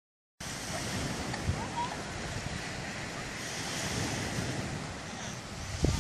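Wind buffeting the microphone over a steady rush of small lake waves washing onto a sandy beach, starting about half a second in.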